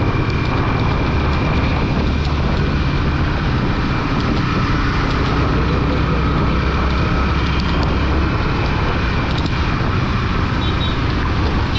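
Riding a motorcycle in traffic: a steady rush of wind on the microphone over the bike's engine and road noise.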